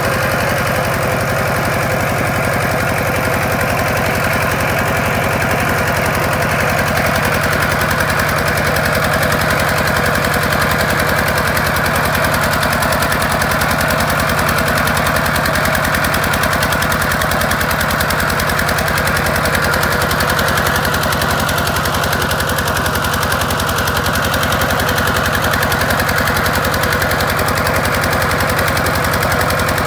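Kubota two-wheel walking tractor's single-cylinder diesel engine running steadily while driving, a rapid, even chugging of exhaust beats.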